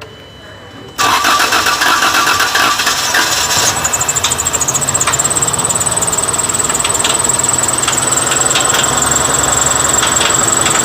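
Car engine cranked by its starter about a second in, catching after a couple of seconds and then running steadily with a high, steady whine. The engine noise is one that the mechanics suspect comes from the lifters or tappets.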